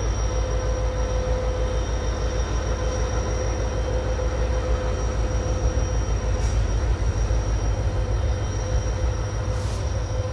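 Passenger train running steadily, heard from on board: a continuous low rumble of wheels on rails with a constant hum through it.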